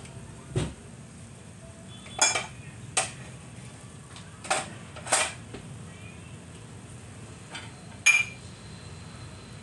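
Kitchen utensils and dishes clinking and knocking about six times, the first a dull knock and the rest sharp and ringing. Under them is a steady low noise from a pot of water at a rolling boil.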